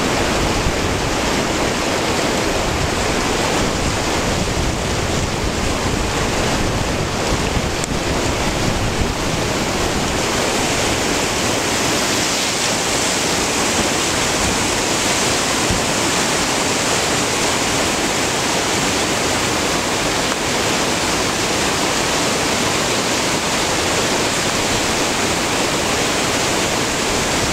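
Whitewater rapid rushing over boulders, a steady, unbroken roar of churning water.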